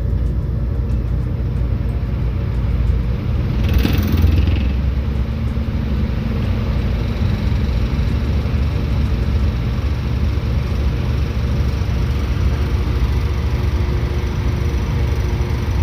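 Mr. Heater Big Maxx 80,000 BTU natural-gas garage heater running with a steady low hum from its fan and burner. With its fan braced against vibration, it is working quietly. A brief louder noise comes about four seconds in.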